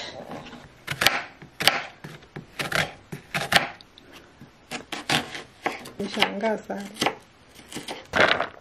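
Knife chopping a red onion on a plastic cutting board: a run of uneven sharp strokes, about two a second, as the onion is sliced and then diced.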